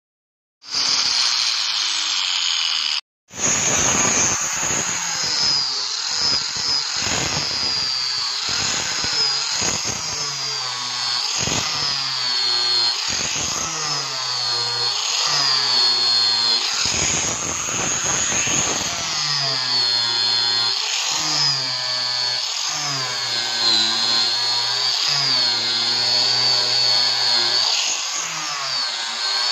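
Angle grinder with a buffing wheel polishing a stainless steel sheet: a steady high motor whine that wavers up and down as the wheel is pressed on and eased off. The sound cuts out for a moment about three seconds in.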